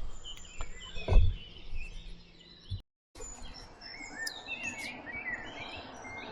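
Small birds chirping and singing, with short rising and falling notes, over steady outdoor background noise. A dull thump about a second in is the loudest sound, and the audio cuts out briefly near the middle.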